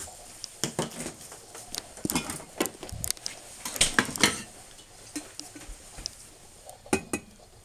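Scattered clicks, clacks and knocks of kitchen items being handled: a plastic creamer canister set down and the glass carafe lifted out of a drip coffee maker.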